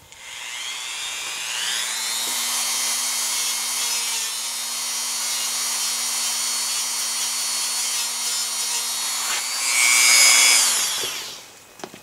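Dremel rotary tool with a small wire brush spinning up and running with a steady whine, scrubbing the aluminium coil of a water heater clean before brazing. It gets louder near the end, then winds down.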